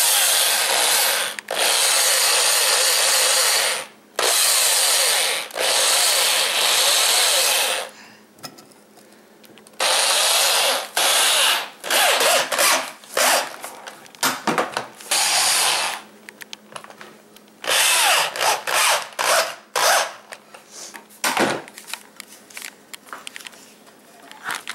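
Handheld power tool working on wood, run in long bursts of a few seconds with short breaks, then in shorter stop-start bursts through the second half.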